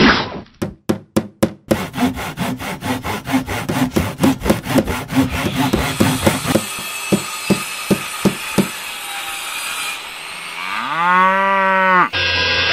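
Cartoon construction sound effects: a few hammer knocks, then a quick run of sawing strokes, then more spaced hammer blows. Near the end comes a pitched whine that rises, then holds steady.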